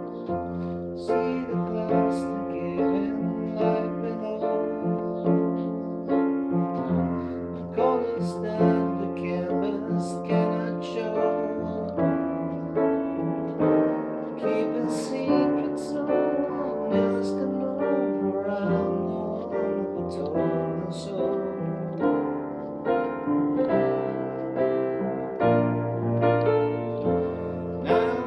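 Piano playing a slow piece: struck notes and chords about once a second over held bass notes that change every few seconds.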